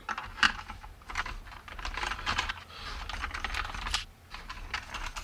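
Irregular small clicks and taps of hard plastic as the Radiomaster Boxer radio controller's case is handled and probed with a small screwdriver during disassembly, with a stretch of scraping in the middle.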